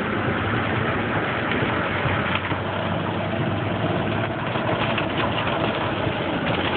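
Car driving on a rain-soaked road, heard from inside the cabin: steady engine and tyre noise on the wet pavement.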